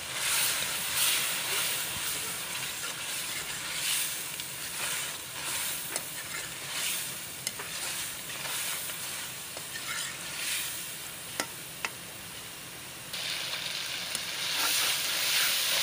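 Chopped bitter gourd and tomato paste sizzling in hot oil in a metal wok, stirred with a spatula in repeated strokes. Two sharp clicks of the spatula on the pan come a little after halfway, and the sizzling grows louder over the last few seconds.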